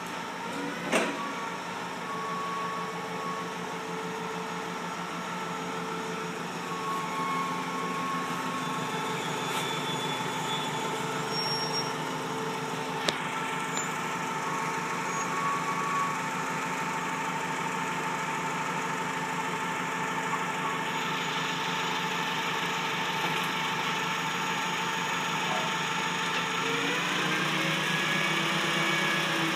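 Clark forklift's engine running steadily, rising in pitch near the end. A sharp knock about a second in and a click around halfway.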